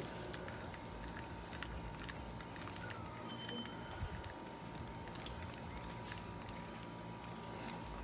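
Hot oil sizzling and crackling in a frying pan as breaded mozzarella sticks fry, with many small pops and a single knock about four seconds in.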